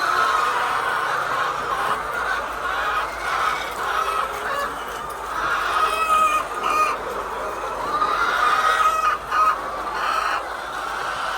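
A flock of laying hens clucking and calling, many birds overlapping in a continuous chorus.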